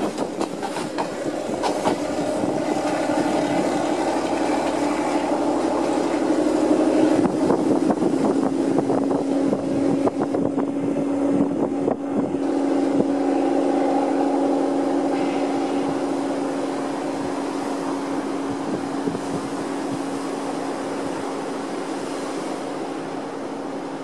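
Diesel multiple-unit passenger train running past, its engine drone steady and dropping slightly in pitch about seven seconds in, over clattering wheels on the rails; the sound eases off towards the end.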